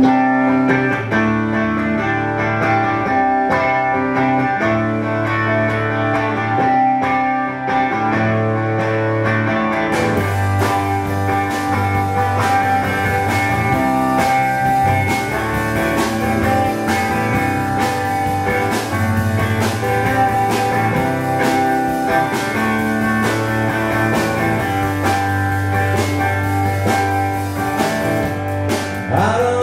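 Live rock band playing instrumental music: electric guitar over electric bass and a drum kit. The drums fill out with cymbals about ten seconds in.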